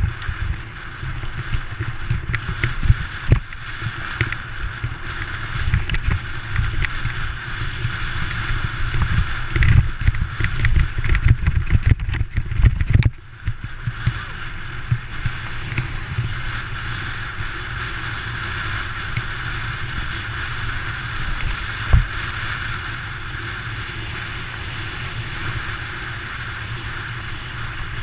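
Giant Trance Advanced full-suspension mountain bike ridden over a rough dirt and gravel track, heard from a handlebar-mounted action camera: tyre rumble with frequent knocks and rattles from the bike and camera mount over bumps. About halfway through the sound dips briefly, then runs steadier with fewer knocks.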